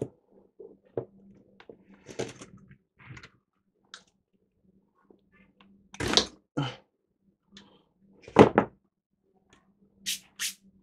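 Scattered clicks and knocks of hands working a corroded old capacitor loose inside a valve tester's metal chassis, with two louder clunks about six and eight and a half seconds in.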